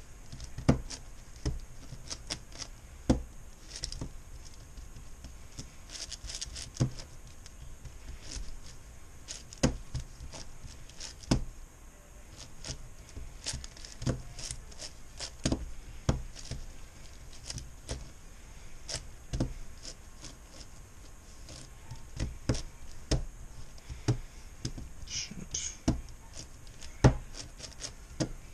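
MoYu Meilong 10x10x10 M cube being turned one-handed while its centers are built: irregular clicks and clacks of the plastic slices, the loudest a second or two apart with fainter ones between.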